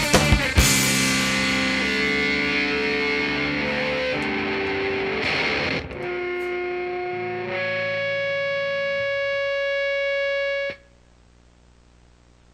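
A screamo band's last drum hits, then distorted electric guitar and bass left ringing. The ringing thins to a few steady held tones and cuts off suddenly about eleven seconds in, leaving faint hiss.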